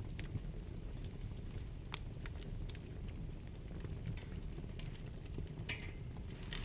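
Wood fire burning in a fireplace, crackling with irregular sharp pops and snaps over a steady low rumble of flames. A couple of louder pops come near the end.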